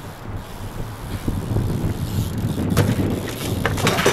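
BMX bike and rider crashing onto asphalt: a sharp clatter about three seconds in, then a quick run of knocks and clatters near the end, over a steady low rumble.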